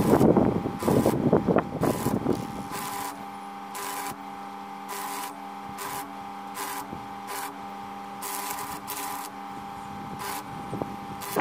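Stick (arc) welding on steel square tubing, the arc crackling and sputtering for about the first two and a half seconds before it is broken off. A quieter steady hum with faint regular ticks carries on after the arc stops.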